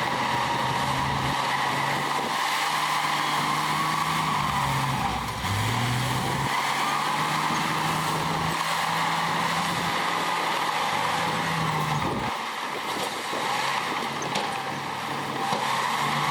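Heavy diesel engine of earthmoving machinery running hard. Its pitch dips and climbs back about five seconds in, then drops away about twelve seconds in.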